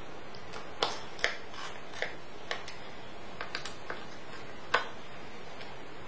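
About eight small, sharp clicks and taps at uneven intervals as a laptop's metal CPU heatsink and its small parts are handled and fitted onto the motherboard, over a steady hiss.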